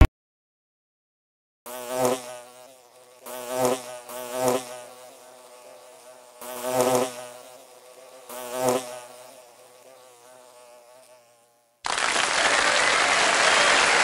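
Insect-like buzzing that swells and fades about five times, as a flying insect passing close. Near the end it stops and a steady burst of applause begins.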